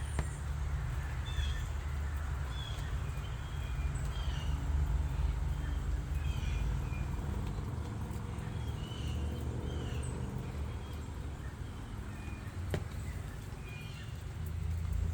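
Small birds chirping, many short calls scattered throughout, over a steady low rumble.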